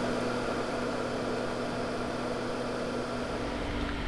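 Fume extractor fan running with a steady hum. About three seconds in the hum changes, with a deeper rumble and a new tone.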